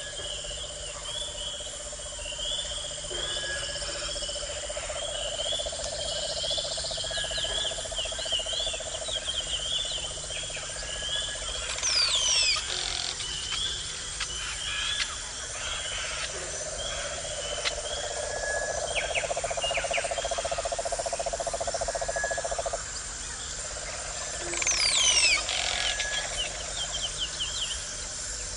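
A chorus of frogs and insects: rapid repeated chirps over a steady high buzz and a low pulsing trill. Twice, about twelve seconds in and near the end, a loud call falls sharply in pitch.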